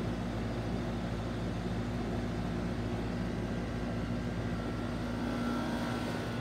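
A steady mechanical drone, an engine or motor running without a break, with a low pitched hum and a fainter high whine that comes in during the second half.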